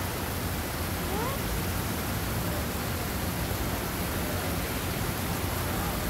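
Steady rushing outdoor background noise, even and unbroken, with a short rising chirp about a second in.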